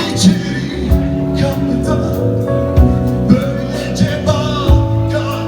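A song being performed, with a man singing over guitar accompaniment.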